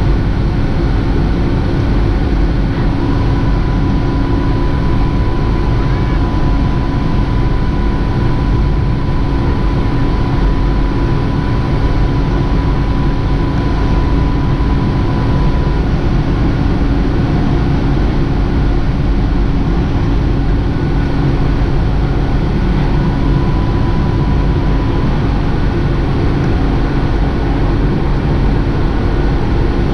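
Jet airliner engines and airflow heard from inside the cabin during the climb after takeoff: a loud, steady rumble with a constant hum. A faint thin whine joins in from about 3 to 16 seconds in, and again briefly about 23 seconds in.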